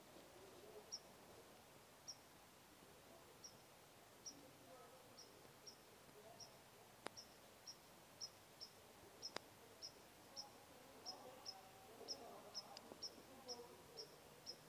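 Near silence, with a faint short high chirp that repeats, sparse at first and then about twice a second. Two sharp clicks come midway.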